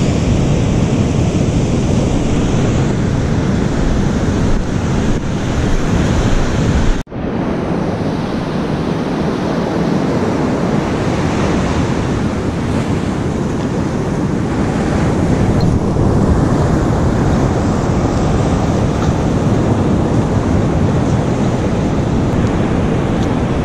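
Ocean surf breaking on the beach, with wind buffeting the microphone; the sound cuts out for an instant about seven seconds in.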